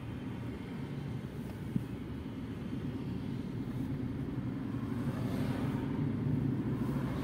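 Fiat Egea driving in traffic, its engine and tyre noise heard from inside the cabin as a steady low rumble that grows a little louder about five seconds in. One short click sounds just under two seconds in.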